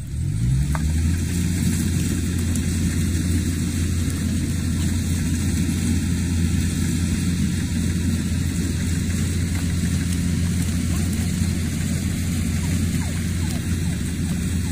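An engine speeding up from a lower run within the first second, then running steadily at a constant speed.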